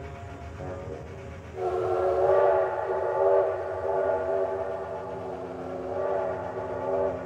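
Train whistle sounding one long, held blast. It starts suddenly about a second and a half in and swells and fades several times.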